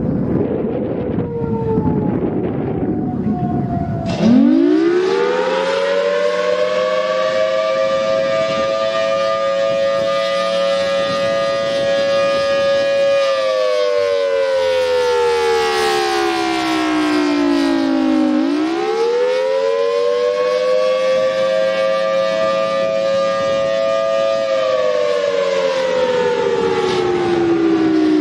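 Federal Signal Thunderbolt 1000T outdoor warning siren sounding its attack (wail) signal. About four seconds in, after the fading tail of a falling wind-down tone under a low rumble, it starts up with a sharp rising sweep to a steady tone. It then glides slowly down and up again and holds before falling once more.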